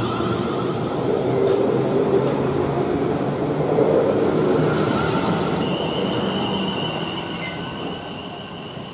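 South Western Railway Class 701 Arterio electric multiple unit running through the station and away, a steady rumble of wheels and running gear that fades over the last few seconds. A steady high-pitched whine starts about six seconds in, with a single sharp click shortly after.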